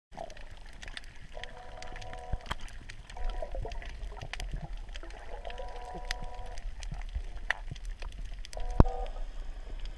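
A soft robotic jellyfish's small pump whines in bursts of about a second, switching on and off four or five times as the tentacles pulse, with scattered clicks and water noise from the tank and a sharp click near the end.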